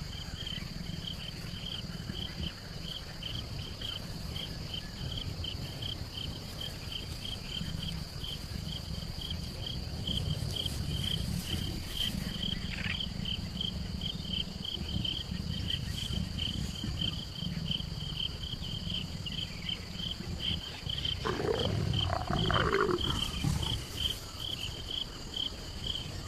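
Leopards growling as they mate, with a louder snarling call near the end. Insects chirp steadily and rhythmically underneath.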